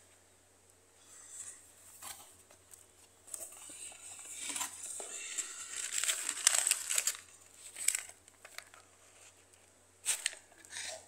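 Cardboard cartons and a plastic noodle packet being handled inside a cardboard shipping box: irregular rustling, scraping and crinkling, loudest in the middle, with two short sharp crinkles near the end.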